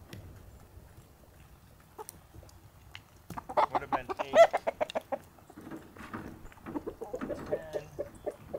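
A mixed flock of chickens, hens and roosters, clucking. The loudest part is a longer call with a wavering pitch about four seconds in, followed by a run of short clucks.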